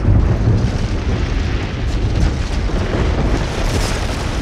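Sound effect of a high-rise tower blowing apart and collapsing: a continuous, heavy, explosion-like rumble with a deep low end and a noisy spread of debris hiss above it.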